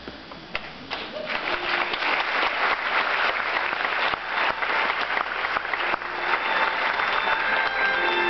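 Audience applauding, starting about a second in and thinning as instrumental music comes back in near the end.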